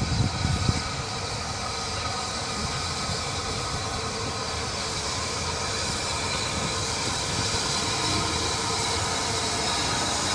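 Rebuilt Bulleid West Country Class Pacific steam locomotive moving slowly towards the listener, a steady rushing, hissing sound growing a little louder as it nears. A few low thumps in the first second.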